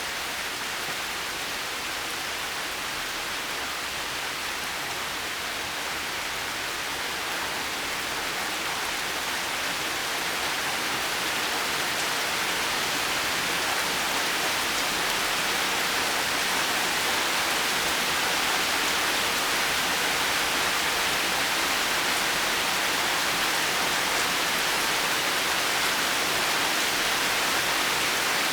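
Steady heavy rain, a dense even hiss with no thunder, growing slightly louder over the first half.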